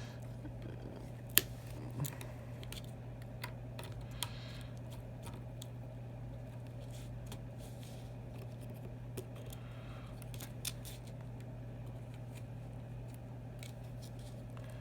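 Pliers clicking and scraping against a phone's glued internal parts while prying up the charging port assembly: scattered light clicks, the sharpest about a second and a half in, over a steady low hum.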